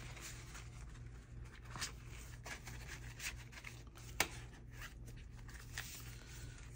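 Faint rustling and rubbing of banknotes and a clear plastic cash envelope being handled, with a few sharp clicks, the loudest about four seconds in.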